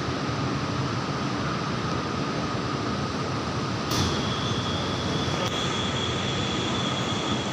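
Lahore Orange Line electric metro train running: a steady rolling rumble with a faint continuous whine. About four seconds in there is a click, and a higher whine sets in for a few seconds.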